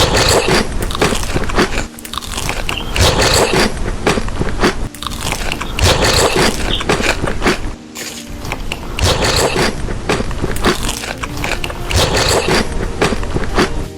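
Close-up chewing and biting of crunchy food, loud crackly crunches in an uneven run of bites.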